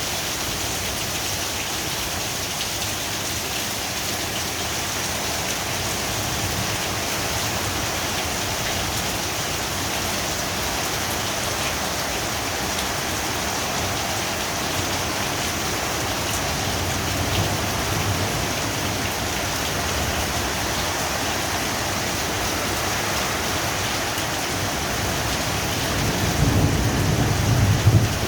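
Heavy rain pouring steadily, with rolls of thunder rumbling low underneath; the loudest thunder rolls in near the end.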